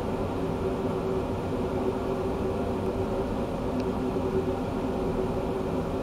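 Steady mechanical hum with a constant rushing noise, holding one level throughout.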